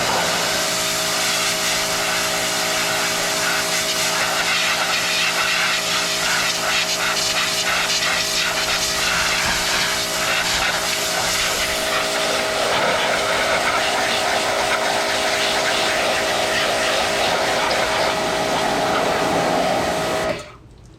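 Pressure washer running steadily, its motor whining over the hiss of the spray, then cutting off suddenly near the end.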